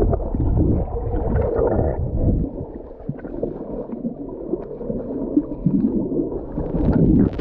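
Muffled underwater sound of water moving and bubbling around a swimmer in a spring, heard through a submerged camera, with only low, dull sound and nothing bright or sharp. It eases off about two and a half seconds in and swells again near the end.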